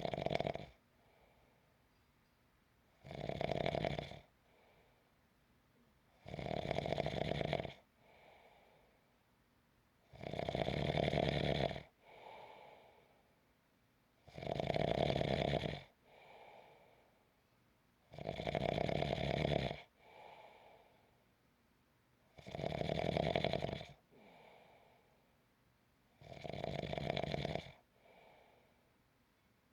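A sleeper snoring in a slow, regular rhythm. A loud snore on each breath in comes about every four seconds, lasts about a second and a half, and is followed each time by a much softer breath out.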